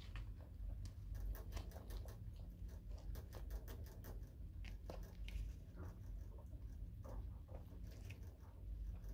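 Light scratching, rustling and small irregular clicks as newborn Netherland Dwarf rabbit kits are handled and scrabble about, over a low steady hum.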